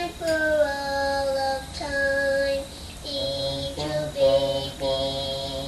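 A young girl singing a slow song, in long held notes with short breaks between phrases.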